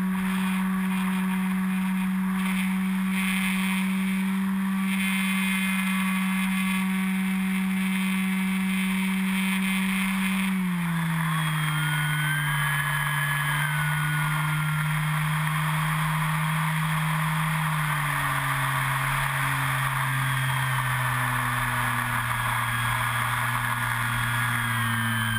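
Onboard sound of an E-flite Carbon-Z Yak 54's electric motor and propeller in flight: a steady drone that drops in pitch about ten seconds in and steps lower again later as the motor slows, with a thin wavering whine above it and wind rushing past.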